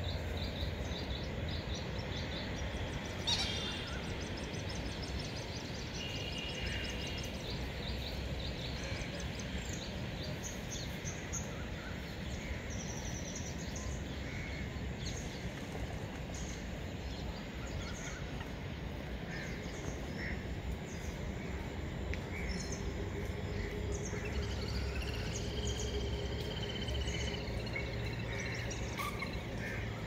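Several wild birds chirping, twittering and trilling with short, scattered calls, one of them holding a longer buzzy call near the end. Under them runs a steady low background rumble, and there is a single sharp click about three seconds in.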